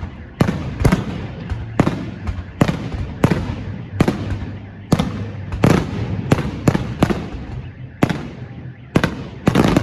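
Aerial fireworks display: shells bursting with sharp bangs in quick irregular succession, one or two a second, each trailing off in a rolling echo.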